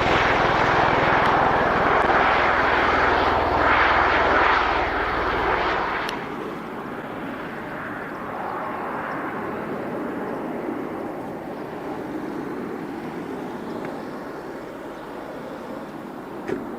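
V-22 Osprey tiltrotor flying off: a loud drone with a low rotor beat. About six seconds in it drops sharply to a much fainter, steady rush. There is a short knock near the end.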